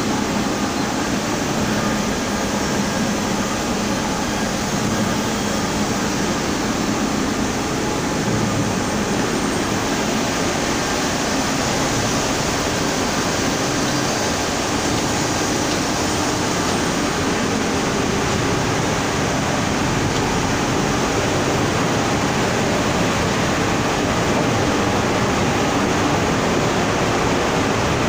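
Krantz stenter frame running in production: a loud, steady rushing noise from the machine and its drying chambers, with no rhythm or separate knocks.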